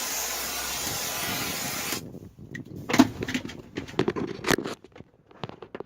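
Aerosol can spraying a steady hiss onto sound-deadening mat to freeze it; the spray cuts off about two seconds in. Then come irregular sharp clicks and cracks as the frozen, brittle deadening is broken and chipped off the car's floor.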